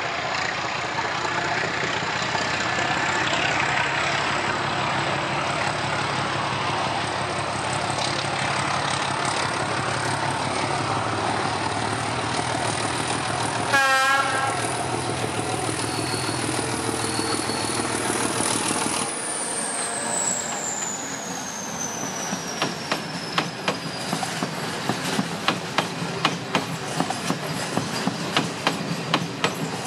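ČKD class 749 diesel locomotive running hard as it approaches and passes, its K6S310DR six-cylinder engine throbbing, with one short horn blast about halfway through. As it goes by, a high whine drops in pitch. The towed Pendolino cars then roll past with regular clickety-clack of wheels over rail joints.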